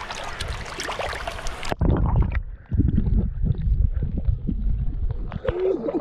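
Water splashing and sloshing as a fish is rinsed by hand in a shallow river. Less than two seconds in, the sound suddenly turns muffled into a heavy, choppy rumble.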